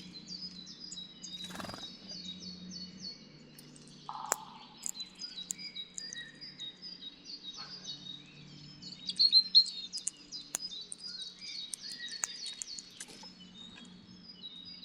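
Many small birds chirping and singing together: a dense chorus of short, high, repeated notes, loudest about nine seconds in.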